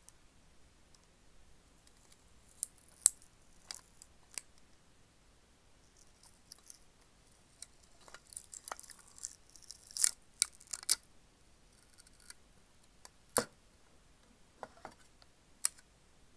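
Sealing sticker being peeled off the lid of a Sakuma Drops tin: scattered sharp crackles and crinkly tearing, busiest about halfway through, with a few louder snaps as the strip comes unstuck.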